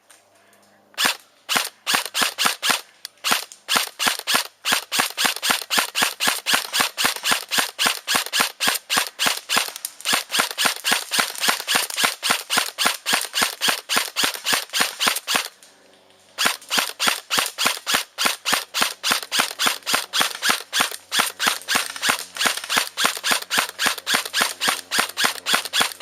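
Airsoft gun firing shot after shot in a steady run of sharp cracks, about four to five a second. About fifteen seconds in there is a brief pause, then the firing goes on.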